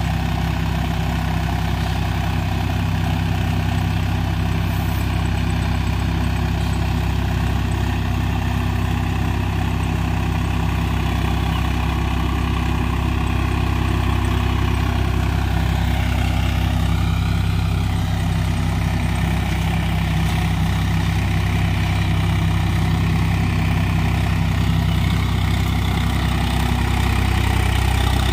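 Swaraj 744 XT tractor's three-cylinder diesel engine running steadily under load while driving a rotavator through the soil.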